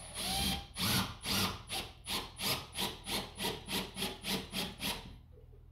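Rhythmic back-and-forth scraping strokes, about three a second, a dozen or so in a row, stopping about five seconds in.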